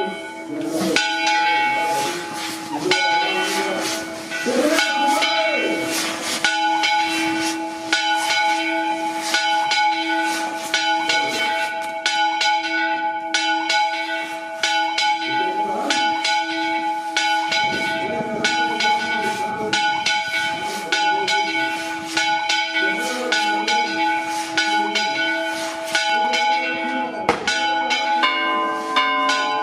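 Church bells ringing in a rapid, continuous peal: many quick strikes over steady ringing tones, with the pattern of tones changing near the end.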